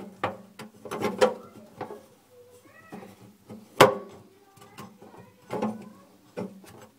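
Irregular clicks and knocks of a garbage disposal's metal mounting ring and gasket being handled and turned by hand, the sharpest click about four seconds in.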